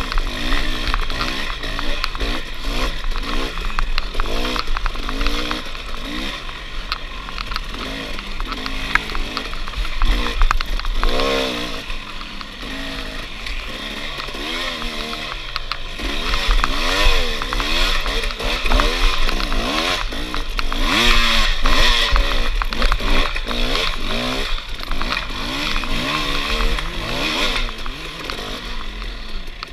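Off-road dirt bike engine revving up and falling back over and over under hard riding, the pitch climbing and dropping every second or so as the throttle is worked.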